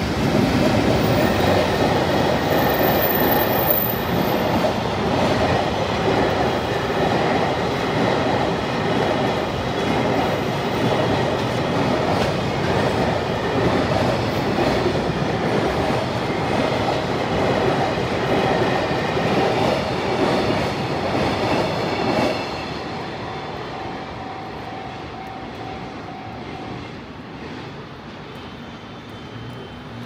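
A freight train hauled by an electric locomotive, tank cars then container wagons, rolls through a level crossing with rhythmic clickety-clack from its wheels over the rail joints. A level-crossing alarm bell rings steadily underneath. The train noise cuts off about 22 seconds in, and the bell stops a few seconds later.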